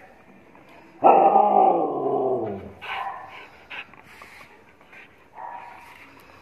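A dog gives one loud, drawn-out cry about a second in, its pitch sliding steadily down, followed by a few shorter, quieter vocal sounds.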